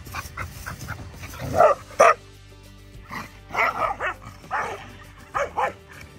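Two Australian cattle dogs play-fighting, giving a string of short barks and yips, loudest about two seconds in, over background music.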